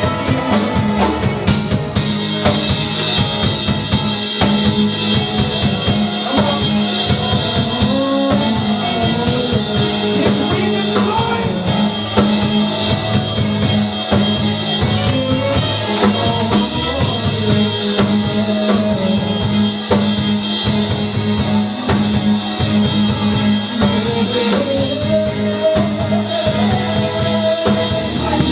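Music with a steady drum kit beat, bass drum and snare, under a sustained low bass note and a melody line.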